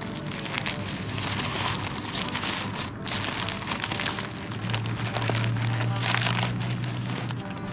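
Paper wrapping crinkling as a takeaway burger is unwrapped and handled, a dense run of fine crackles. A low steady hum comes in for the second half.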